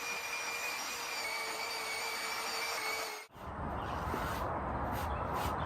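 Power sander running on an epoxy-filled pine butcher block countertop, a steady whine over the hiss of the pad on the wood. About three seconds in it cuts off and a rougher, lower noise takes over.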